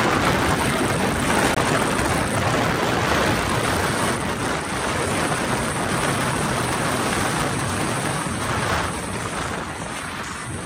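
Polaris RZR side-by-side driving along a dirt road, heard from inside its open cab: a steady rushing mix of engine, tyre and wind noise that eases off a little near the end.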